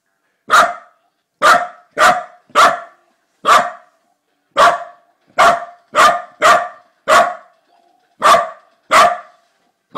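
A corgi barking over and over, about a dozen short, sharp single barks spaced half a second to a second apart.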